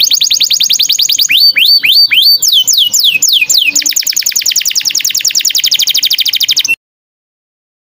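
Songbird singing a rapid, loud song of repeated whistled notes. Fast trills are broken by a few slower sweeping notes, then a long fast trill that cuts off abruptly near the end.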